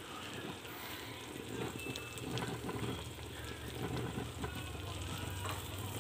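Egg and bread frying in butter in a frying pan: a steady, soft sizzle with faint crackles.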